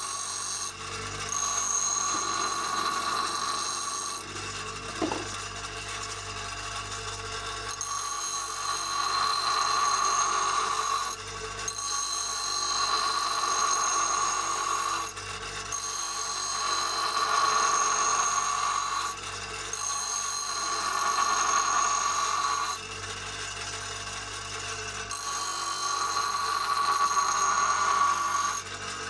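Einhell bench grinder grinding a steel chain: a steady whine with a rasping grind. It grows louder and softer every few seconds.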